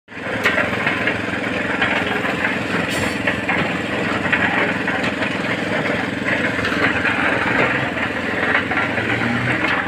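An engine running steadily, with occasional scrapes and knocks of a shovel working in wet mud and water.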